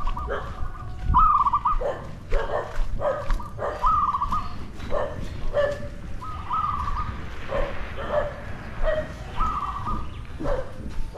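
An animal calling over and over, a short lower note and a wavering higher note about every second, with sharp clicks in between.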